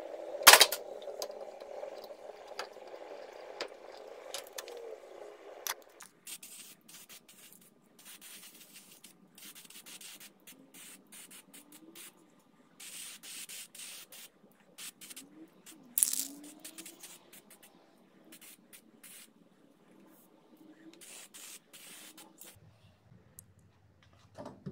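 Handling noise as a carved wooden skull mount is fitted onto a wall: a sharp knock about half a second in, then many short, irregular scraping and rubbing sounds, with a louder scrape about sixteen seconds in.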